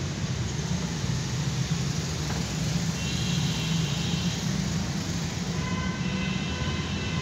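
A steady low rumble, with faint drawn-out high tones about three seconds in and again near the end.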